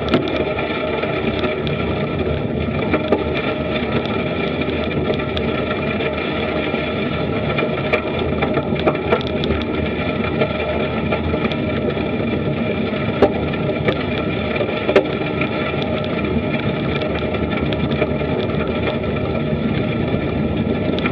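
Bicycle tyres rolling steadily over a gravel path, with wind and ride vibration on the camera's microphone and a few sharp knocks from bumps and stones.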